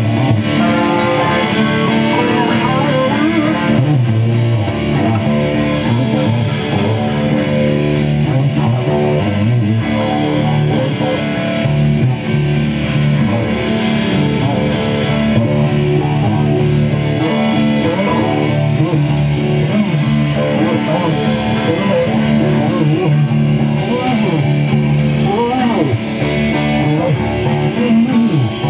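Two guitars playing together, one of them an acoustic steel-string guitar played with a pick, continuously, with notes that bend in pitch above the chords.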